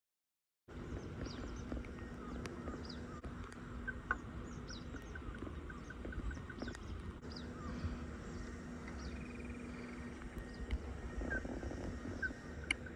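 Outdoor ambience: birds chirping in many short, high calls over a steady background rush, after a brief dead silence at the very start.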